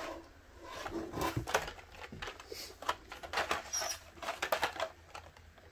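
Hot Wheels cars in plastic blister cards being pulled out of a cardboard shipping case: a run of light clicks, scrapes and rustles of plastic and card against each other.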